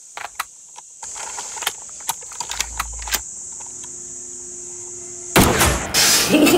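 Film-trailer sound design: a steady high-pitched drone with scattered sharp clicks and a brief low rumble, then a sudden loud blast a little over five seconds in that stays loud to the end.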